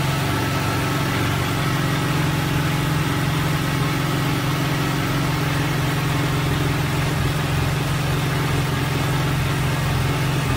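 Kawasaki H2 Carbon's supercharged inline-four engine idling steadily.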